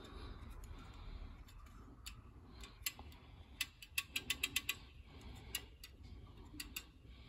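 Small, sharp mechanical clicks from a water-pump pressure switch being worked by hand: a few scattered clicks, then a quick run of about six near the middle.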